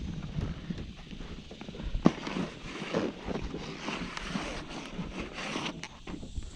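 Irregular knocks, clicks and rustling of gear being handled on a plastic fishing kayak.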